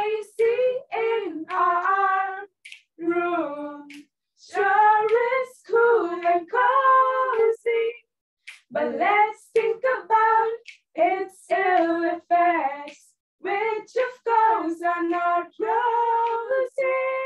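Two girls singing a song together without accompaniment, in short phrases separated by brief pauses.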